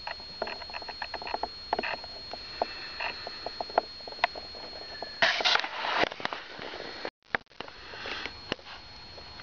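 A person sniffing or drawing breath through the nose about five seconds in, over many faint scattered clicks and ticks. A faint steady high whine runs underneath and cuts out about seven seconds in, where the sound briefly drops out.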